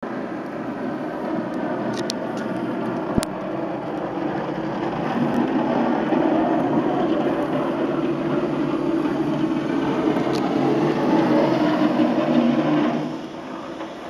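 Snow plow trucks passing on a highway, a steady rushing noise of engines and plowed snow that grows louder and then falls away sharply near the end. A single sharp click about three seconds in.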